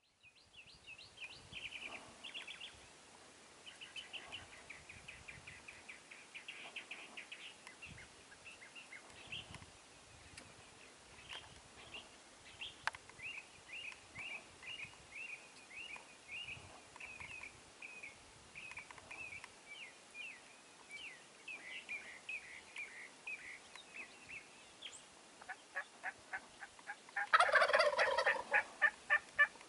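Wild turkey gobbling: one loud, close, rapid rattling gobble near the end, after a long stretch of quieter, quick chirping bird calls.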